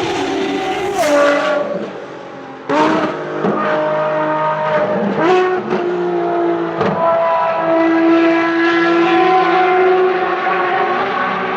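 Ferrari racing car engines at high revs passing on track, pitch stepping up and down with rapid gear changes. The sound drops away briefly, then jumps back in suddenly about three seconds in, and holds a steady high-pitched engine note later on.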